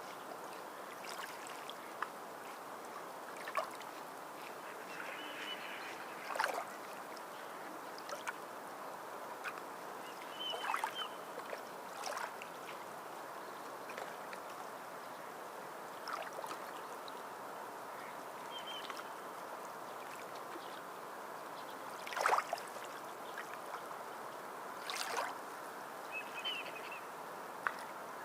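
Sea water lapping and splashing: a steady wash with irregular louder splashes and gurgles, the strongest about two-thirds of the way through.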